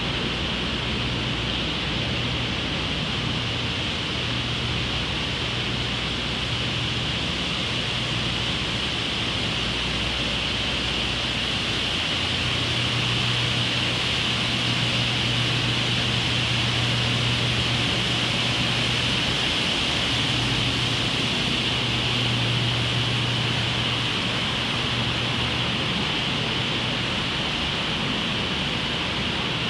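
Steady hum and hiss of an empty concrete parking garage, with a low hum that grows a little louder midway.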